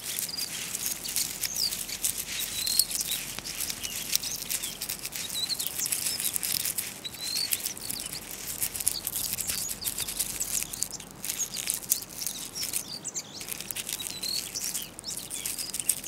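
Small birds giving short high chirps scattered throughout, over a light, steady crackling rustle of dry grass and twigs.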